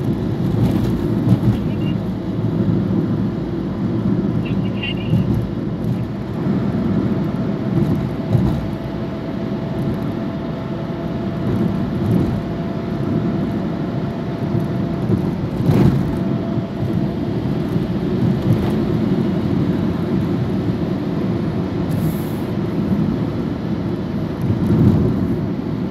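Steady road noise inside a moving car's cabin: a low rumble of tyres and engine, with a single sharp knock about two-thirds of the way through.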